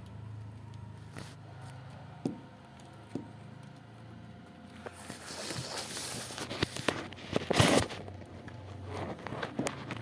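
Handling noise of a phone being moved and set down on a tile floor: rustling, scraping and clicks, loudest about three-quarters of the way through, over a steady low hum. Two small taps come a few seconds before.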